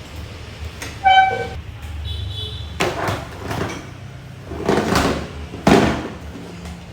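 Several knocks and clatters, four of them between about three and six seconds in, with a short ringing tone about a second in, over a steady low hum.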